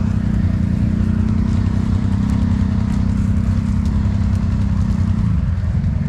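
Can-Am Outlander 1000 XMR ATV's V-twin engine running steadily, its pitch sagging briefly near the end.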